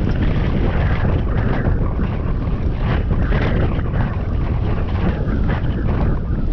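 Wind buffeting the microphone of a GoPro Hero 7 on a moving bicycle: a loud, steady rushing.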